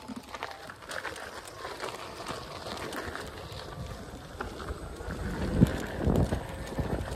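Electric unicycles riding along a dirt forest trail: steady rolling rumble with wind on the microphone, and a few loud low thumps and buffets near the end.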